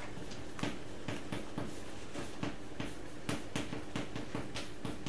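Chalk writing on a blackboard: a quick, irregular run of sharp taps and short scratches, stroke after stroke, over a faint steady hum.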